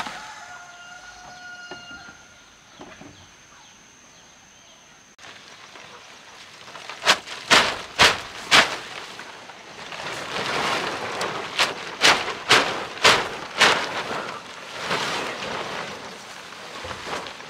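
Sharp knocks in two quick runs of about four and five strikes, over a steady rushing noise. A few thin steady tones are heard in the first two seconds.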